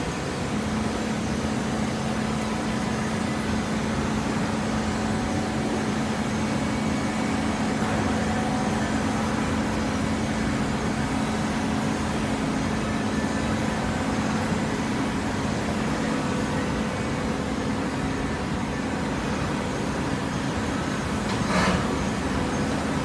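Steady hum of a horizontal hydraulic baler's electric motor and hydraulic pump running, with one short burst of noise near the end.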